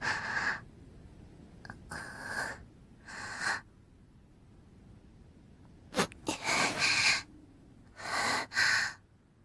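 A young girl crying: about five sobbing breaths and sniffles, short and breathy, with a longer pause after the third one.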